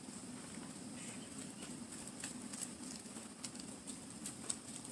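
Gas torch flame burning steadily with a low, even rush, with scattered faint clicks and crackles.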